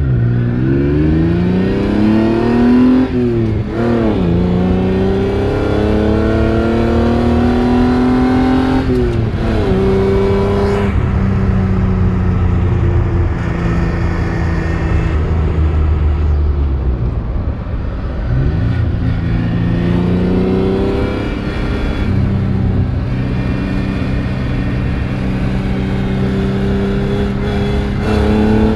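Engine note of a 1969 Marcos 3 Litre coupe's Ford 3-litre V6, heard from inside the cabin while driving. The pitch climbs steadily under acceleration and drops sharply at each gear change, about 3.5 and 9.5 seconds in. It then cruises at a fairly even pitch, dips and climbs again around the middle, and rises once more near the end.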